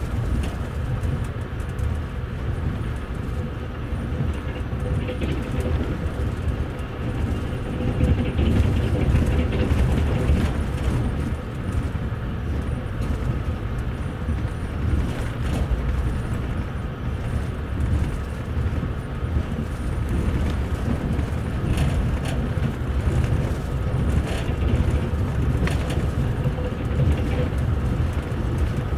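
Steady low rumble of a moving passenger train heard inside a double-decker coach's upper deck, with a faint steady hum and now and then a click of the wheels over the rail joints.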